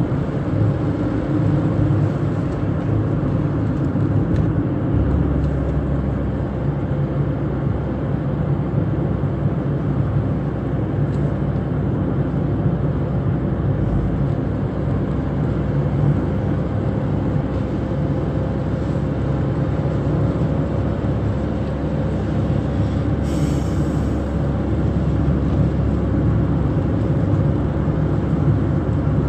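Ford Fiesta being driven, heard from inside the cabin: steady engine and tyre road noise. The low drone strengthens about five seconds in, and there is one brief hiss about three-quarters of the way through.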